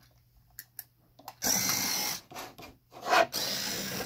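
A 3D-printed can vending machine's dispensing mechanism working: a few light clicks, then a motor-like mechanical running twice, with a sharp loud knock between the two runs.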